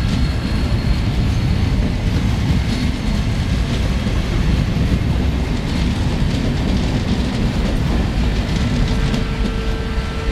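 SBB passenger coaches of a departing locomotive-hauled train rolling past: a steady low rumble with the wheels clicking over rail joints. A thin steady whine joins near the end.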